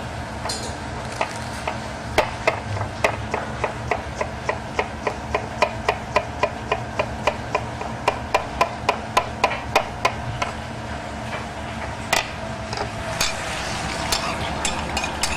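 Chef's knife finely dicing cucumber on a cutting board: a steady run of quick knocks, about three a second, that stops about ten seconds in, over a steady kitchen hum. A few louder, scattered knocks follow near the end.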